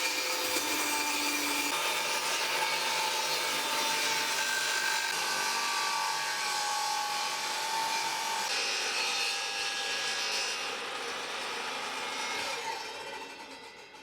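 Table saw running and cutting wood, a steady whining noise that winds down and fades near the end.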